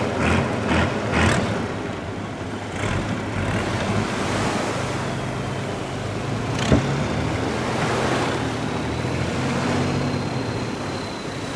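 Longtail boat engine running steadily, a low hum under surf washing on the beach. A single sharp knock a little past halfway.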